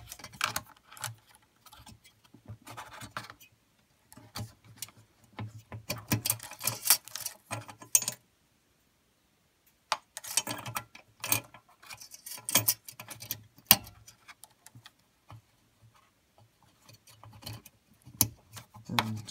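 Irregular small clicks, taps and rattles of plastic parts and wire clips as fingers work the bulbs, bulb holders and wiring inside a Mercedes W203 C-Class halogen headlamp housing. There is a pause of about a second and a half midway.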